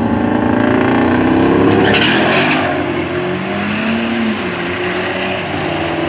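A Jeep Grand Cherokee SRT8 and a diesel pickup truck launching side by side at a drag strip. Engines are held high on the line, then a sharp burst of noise about two seconds in as they leave, then both engines pull away down the track, a little quieter.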